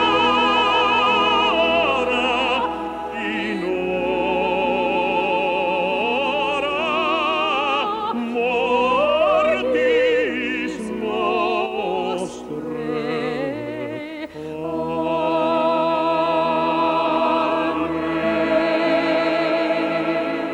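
Operatic-style singing with strong vibrato over an orchestral accompaniment: long held notes with a few sliding phrases in between.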